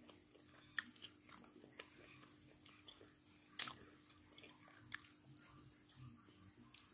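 Faint chewing of a bite of grilled squid, with a few short sharp clicks, the loudest about three and a half seconds in, over a faint steady hum.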